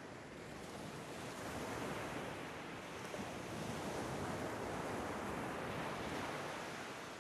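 A soft rushing noise, like surf, that swells over several seconds and fades again near the end.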